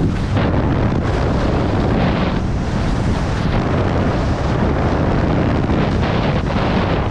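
Loud wind buffeting the microphone of a camera worn by a downhill skier, a steady low rumble, with the hiss of skis sliding over packed, tracked snow that swells briefly a few times.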